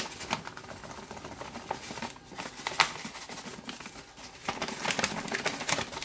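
Folded paper funnel rustling and crinkling in the hands, with scattered light irregular ticks, as fine ground coffee is tipped off it into a glass jar. The crinkling gets busier near the end.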